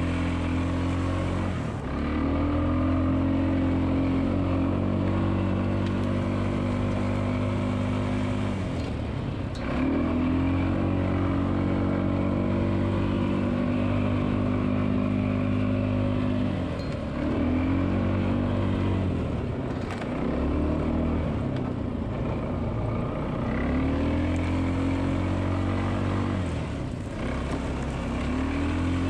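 ATV engine running hard on a trail ride, heard up close from the onboard camera. The throttle opens and eases off several times, with the engine pitch climbing again about 2, 10, 17, 20 and 24 seconds in.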